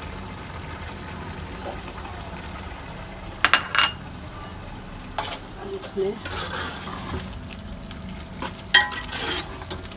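Metal spoon stirring and scraping grated bottle gourd in ghee in an aluminium pot, the mix sizzling lightly. A few sharp clinks of metal and crockery come about three and a half seconds in, and the loudest comes near the end.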